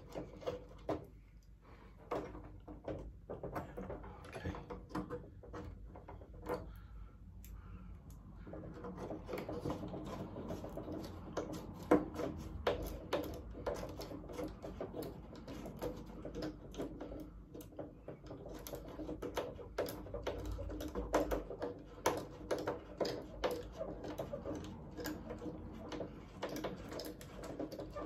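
Small clicks, taps and rustles of hands fitting the tail wheel assembly onto a large model airplane's tail and rudder, scattered irregularly, with a faint steady hum under them from about a third of the way in.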